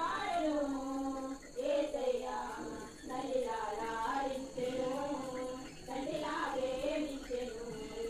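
A high voice singing a slow melody without words being picked out, with long held notes and short breaks between phrases.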